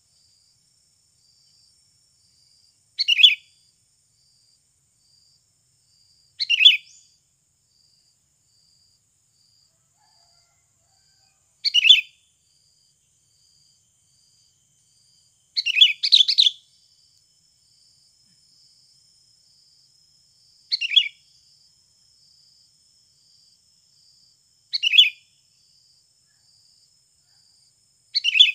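Sooty-headed bulbul (kutilang) lure calls: short, bright chirping phrases repeated about every four to five seconds, one of them doubled midway.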